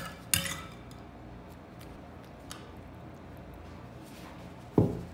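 A metal spoon clinking and knocking against a glass baking dish and a sauce bowl while sauce is scooped and spread: a sharp clink at the start, another just after, a few faint ticks, then a louder knock near the end.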